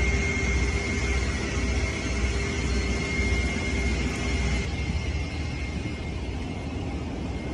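Steady low rumble of an airliner cabin in flight, with a thin steady high whine over it. Both change at a cut about two-thirds of the way through, after which the whine is gone and the rumble is a little quieter.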